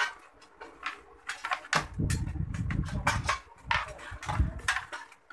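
Handling noise from working on a metal circuit breaker enclosure and its wiring: a string of short clicks and knocks, with low rubbing and rustling in the middle as the wires are moved.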